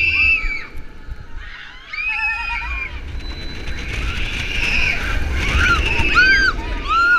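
Riders screaming on a launched roller coaster, high repeated screams that come quicker near the end, over a low rumble of wind and ride noise on the microphone.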